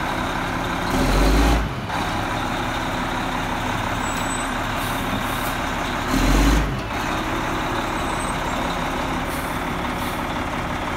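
Detroit diesel engine of a 1999 Oshkosh 4x4 plow truck idling steadily. Two brief louder bursts of noise come about a second in and again around six seconds.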